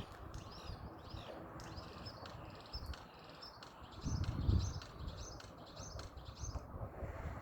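Common starling calling: a quick, busy run of short chirps and whistles that stops about six and a half seconds in. A low rumble or thump about four seconds in is briefly the loudest sound.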